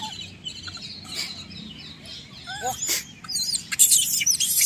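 Birds chirping and calling: a stream of short, high chirps and whistled sweeps, louder and busier in the last second or so.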